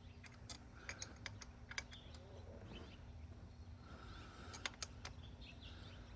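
Faint, scattered light metallic clicks and taps as a bolt and hand tools are handled at the engine's cam hub, over a low steady hum.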